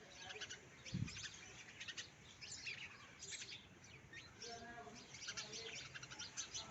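House sparrows chirping: a steady stream of short, quick chirps, with a single low thump about a second in.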